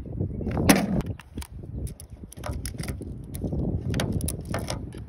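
Metallic clicks and clinks of a Colt Trooper .357 revolver being handled and loaded: the cylinder is swung open and cartridges go into the chambers one by one. A louder clatter comes just under a second in.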